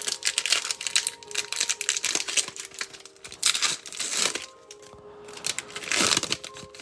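Trading card pack wrapper being crinkled and torn open by hand: a dense run of crackling for about four seconds, then another brief burst of crinkling near the end.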